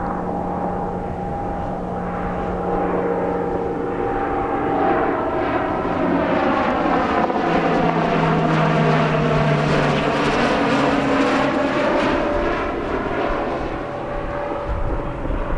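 Northrop Grumman E-2C Hawkeye's twin Allison T56 turboprops droning as the aircraft passes by during a touch-and-go. The drone swells to its loudest around the middle and drops in pitch as the aircraft goes past, then fades.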